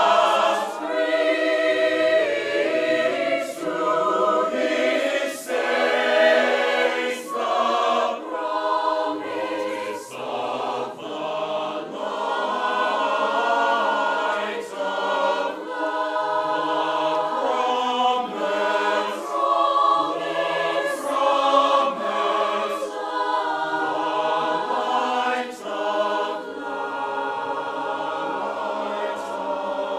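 A large mixed choir of men's and women's voices singing together in held chords.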